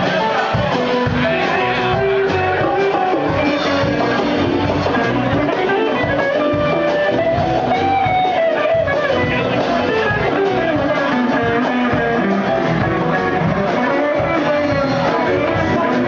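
Live band playing an upbeat groove, with electric guitar over a drum kit and hand drums keeping a steady beat.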